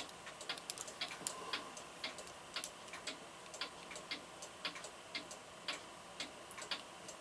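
Mechanical clock ticking steadily and faintly, about three or four ticks a second.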